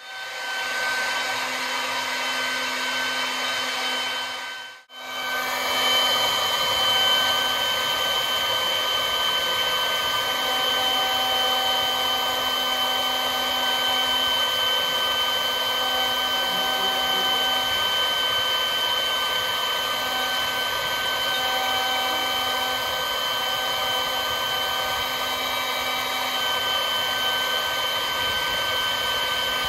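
AMMA Q10 CNC router's spindle running steadily as a V-bit engraves lettering into olive wood: a constant high whine of several steady tones over the noise of cutting. It breaks off briefly about five seconds in.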